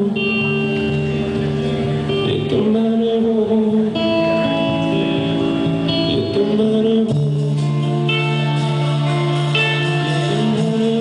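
A live band playing a song: a man singing over acoustic guitar and electric guitar.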